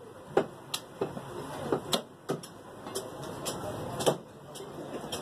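Meat cleaver chopping through a mutton carcass on a wooden chopping block: about ten sharp, irregular chops, the loudest about half a second in and just after four seconds.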